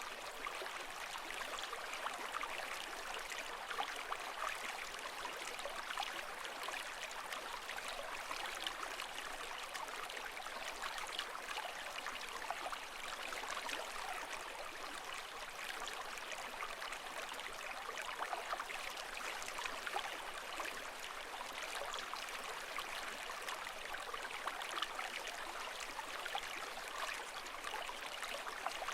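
Running water, a steady even wash with a fine splashing, trickling texture and no rise and fall of waves.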